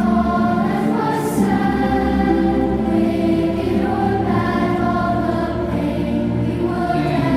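Large choir singing slow, sustained sacred phrases, with orchestral accompaniment underneath.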